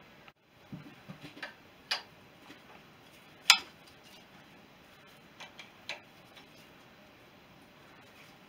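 Irregular sharp metal clicks and taps of a hand tool working on the head studs of a BSA B31 single-cylinder engine, the sharpest about three and a half seconds in.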